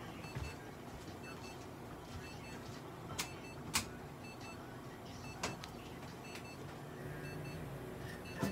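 Steady hum of clinic equipment with faint, evenly repeating high electronic beeps, broken by a few short sharp clicks.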